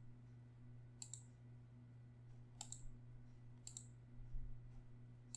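Computer mouse button clicking three times, a second or so apart, with a faint low hum underneath.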